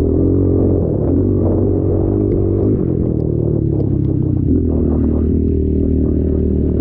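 Off-road race machine's engine running hard at fairly steady revs, with small rises and dips in pitch. Scattered clatter and rattling come from the machine working over rough ground.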